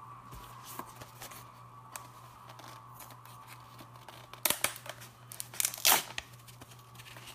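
A glued cardboard blind box being torn open by hand, its top ripped off. There are a few light scrapes and crackles, then a quick run of loud rips about four and a half to six seconds in.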